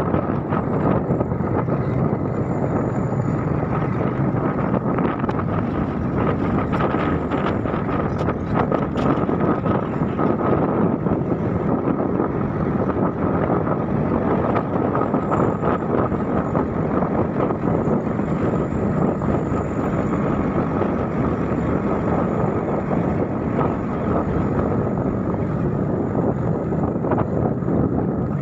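Wind rushing over the microphone of a moving motor scooter, with the scooter's engine running steadily underneath.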